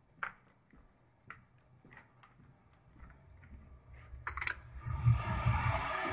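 A few faint clicks and taps, then music comes in about four seconds in and carries on at a steady level.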